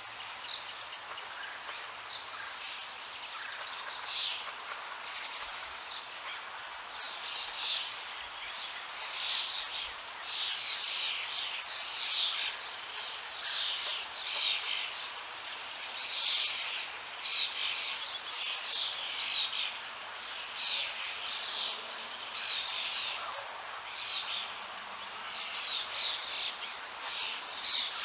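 Songbirds chirping and singing, many short quick falling notes in repeated phrases, over a steady background hiss.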